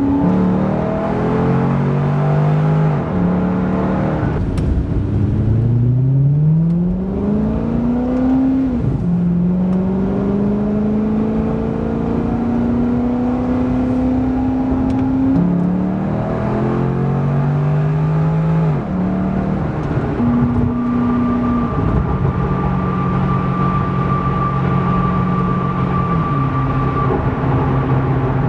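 2012 Corvette Grand Sport's 6.2-litre LS3 V8, fitted with a Borla ATAK exhaust, heard from inside the cabin while driving. The engine note rises with revs and drops sharply at several gear changes, then holds fairly steady over tyre and road noise.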